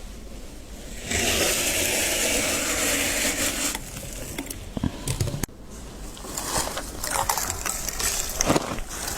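Freezer frost being scraped off in one steady scrape of about two and a half seconds, then a few knocks. After a sudden cut come irregular crunches of frost being bitten and chewed.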